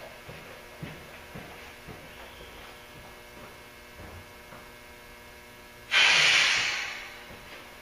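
Compressed air from the spray gun's air line hissing out in a sudden loud burst about six seconds in, fading over a second and a half, as air is let through to the gun. Before it, a steady electrical hum and a few faint handling knocks.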